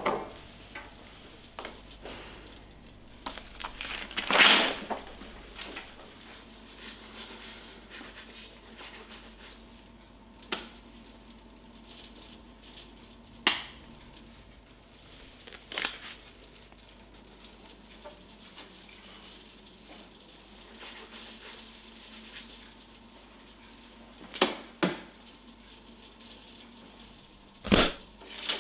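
Quiet room tone broken every few seconds by short rustles and knocks as a person shifts about and handles things. The loudest comes about four and a half seconds in, and there are two close together near the end.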